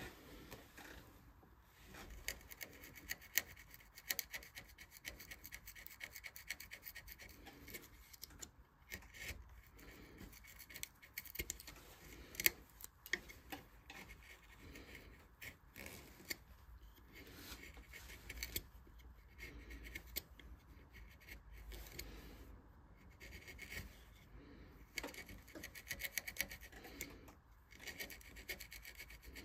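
Hand carving tool scraping and cutting into a wooden vase in quick, irregular short strokes, with a few brief pauses.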